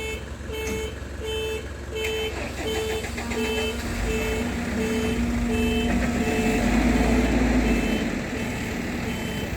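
A vehicle's warning beeper sounds steadily, about two beeps a second, over a working engine. About three seconds in, the engine revs up and gets louder, most strongly around two-thirds of the way through, then eases off, as when a crane takes up a load.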